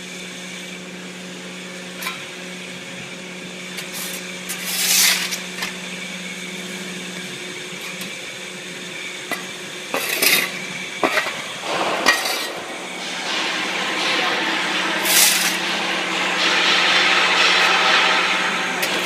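Machinery running with a steady hum, with scattered metallic clinks and knocks and a few short hissing or scraping bursts; a broader rushing noise builds from about two-thirds of the way through.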